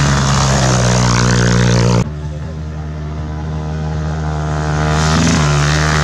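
Rally dirt bike engine at high revs as the bike passes close on a gravel road, cut off abruptly about two seconds in. A second dirt bike's engine is then heard, quieter at first and growing louder until it is close near the end.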